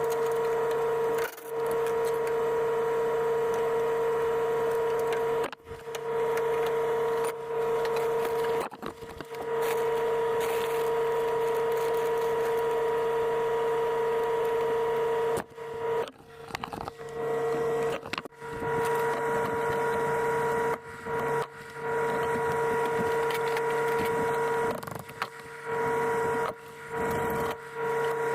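A power tool's motor running with a steady high whine in long stretches. It stops and restarts several times, most often in the second half.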